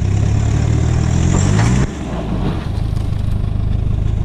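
Toyota Prado turbo-diesel engine working under load on a rocky climb, revs rising for nearly two seconds and then backing off suddenly to a steadier running note.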